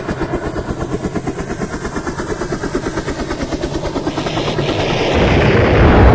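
Helicopter rotor beating with a fast, even chop of about eight beats a second, growing steadily louder. A deep rumble swells in about five seconds in.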